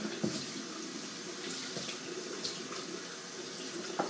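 Water running from a kitchen tap into a sink while container lids are washed by hand, steady throughout, with a light knock near the end.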